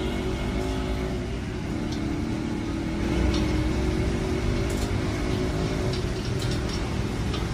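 Steady rumble of road traffic with an engine humming, and a few faint ticks.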